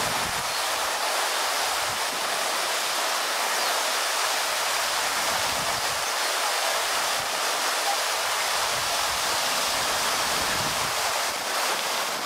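Tall vertical fountain jet running, its water spraying up and falling back in a steady rushing hiss.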